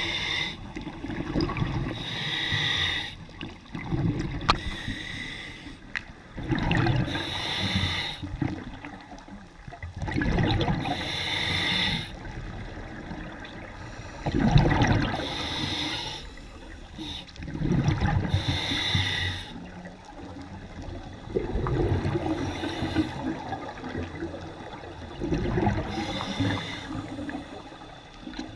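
Scuba diver breathing through a regulator underwater: an inhale through the demand valve, then a burst of bubbling exhaust, repeating about every four seconds.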